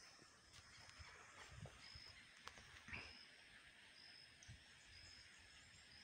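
Near silence: faint outdoor ambience with a short, high chirp repeating about once a second, and a few faint low thumps.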